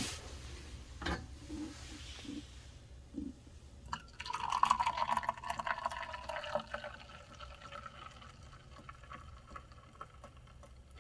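Liquid being poured into a container for about two and a half seconds, starting about four seconds in, after a few small knocks.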